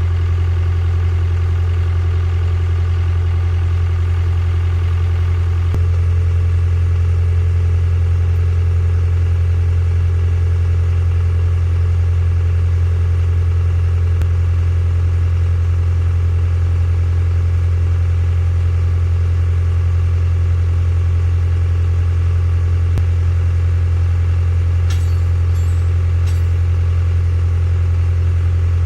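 An engine idling steadily, with a few faint light clicks about 25 seconds in.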